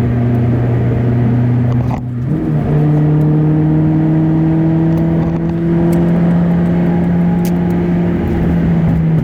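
Audi A4 1.8T turbocharged four-cylinder engine running under way with a steady note. About two seconds in it dips briefly, then comes back at a higher pitch that climbs slowly as the car picks up speed.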